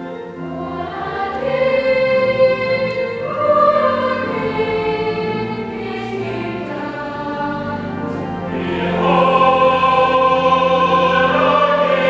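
A church choir of children and adult men singing in parts, with long held notes that change every second or two, growing louder about nine seconds in.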